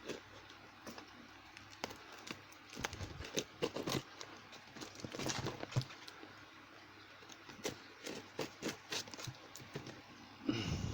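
A cardboard parcel being handled and worked open by hand: scattered clicks and taps with short scraping, rustling bursts, coming in clusters with quieter gaps between.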